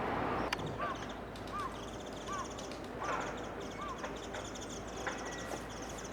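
Wild birds calling: five short, arched whistled notes repeated about every three-quarters of a second over a fast, high, rattling trill. There is one sharp tap about half a second in and a couple of fainter taps near the end.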